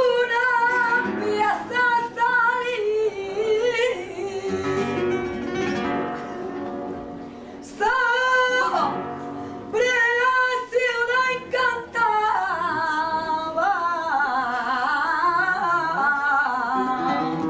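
A female flamenco singer sings wavering, ornamented phrases over flamenco guitar. The voice drops back for a few seconds of guitar a few seconds in, then closes on one long, winding melismatic phrase.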